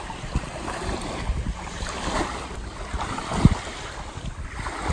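Legs wading through shallow sea water, sloshing, with wind buffeting the microphone. There is a single low thump about three and a half seconds in.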